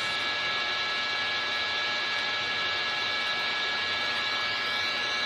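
Steady mechanical hum and hiss with several thin, high, steady whining tones that do not change.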